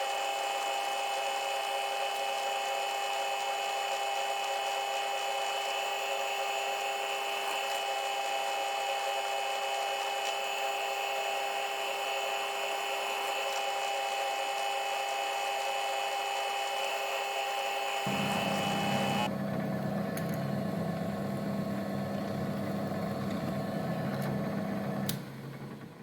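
Milling machine running steadily with a motor whine. About 18 seconds in the sound changes to a lower hum, which cuts off a second before the end.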